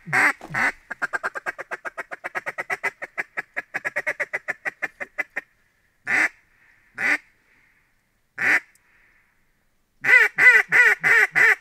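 Mallard duck call blown by a hunter: a few quacks, then a long, fast feed chuckle. It goes on with three single spaced quacks and ends with a loud run of quacks, a hail or greeting call to circling mallards.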